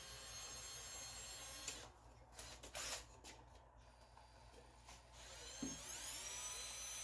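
Electric drill motor whining steadily, stopping about two seconds in, then spinning up again near the end in a rising whine that levels off at speed.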